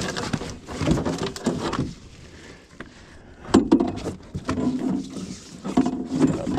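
Knocks, scrapes and rattles in an aluminum boat as a freshly netted coho salmon is handled in the landing net on the boat floor, with a quieter stretch near the middle and several sharp knocks after it.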